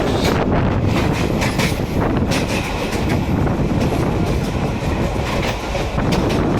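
Passenger train running at speed, heard from inside a coach: a steady rumble of wheels on rails with irregular clicks and clatter over the track.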